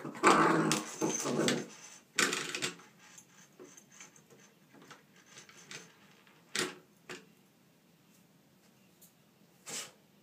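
A German shorthaired pointer puppy chewing and pawing at a baseboard doorstop: a dense burst of rattling and knocking over the first two seconds and another short one just after. Then comes a string of faint taps, with a few sharper clicks later on.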